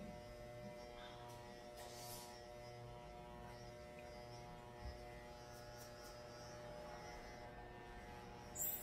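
Electric hair clippers running with a steady hum while cutting a taper along the neckline, with a brief louder noise near the end.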